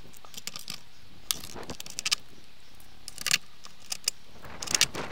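Metal clinks and rattles of mounting bolts and washers being handled and pushed through solar-panel bracket holes into a van's fibreglass high-top roof: scattered sharp clicks, with a denser cluster near the end.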